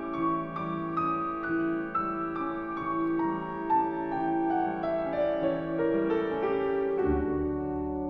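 Background piano music: a slow melody of single notes stepping downward, about two notes a second, over held lower notes, with a deep bass note coming in near the end.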